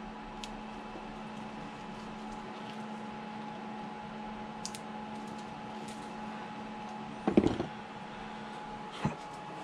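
Small flush cutters snipping resin supports off a 3D-printed engine model: a few faint, sharp clicks over a steady room hum. A louder, brief handling noise comes about seven seconds in.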